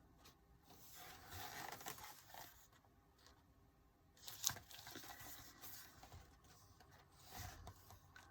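Faint rustling and handling of the album's paper contents, with a sharp tap about four and a half seconds in.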